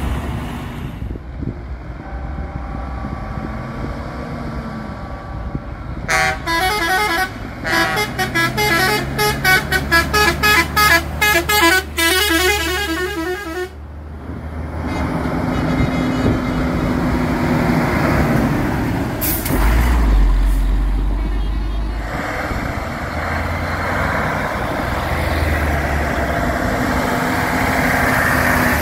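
A truck's air horn sounds a rapid run of short notes at changing pitches, like a tune, for about eight seconds. Around it, heavy truck diesel engines run as trucks drive past, with a deeper engine rumble swelling about twenty seconds in.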